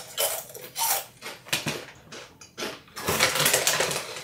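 Crunchy shrimp chips being eaten: a run of short, irregular crisp crunches, with a longer crackly stretch about three seconds in.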